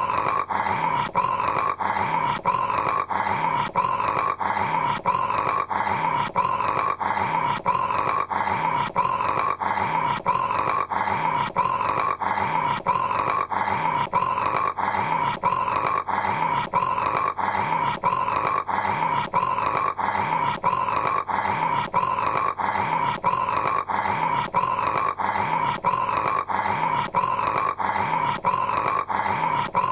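A man snoring, a short rough snore sound repeated over and over in an even rhythm, about two a second.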